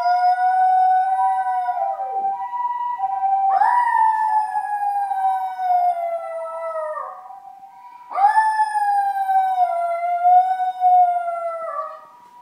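Toy poodle howling along with an ambulance siren: three long howls, each sliding slowly down in pitch, the first already under way and ending about two seconds in. Under them the siren alternates steadily between two notes.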